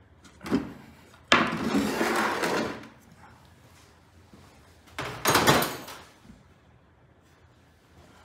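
Workshop handling noises at a workbench: a short knock, then a louder clattering scrape lasting about a second and a half, and another clatter about five seconds in, as tools and small engine parts are handled.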